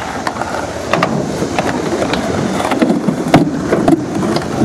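Skateboard wheels rolling on skatepark concrete, a steady rumble broken by a few sharp clacks of the board, the loudest about three seconds in.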